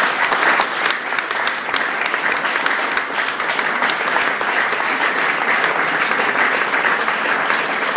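Audience applauding: dense, steady clapping from a crowd at the end of a speech.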